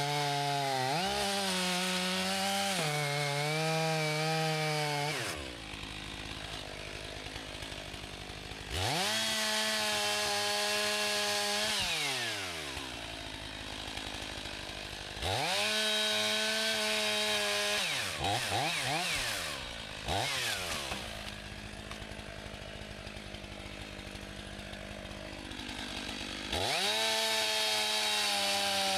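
Chainsaw cutting a fallen tree trunk. It runs at full throttle with the pitch wavering under load, drops to idle about five seconds in, then revs up again twice with a few short blips before idling once more, and returns to full throttle near the end.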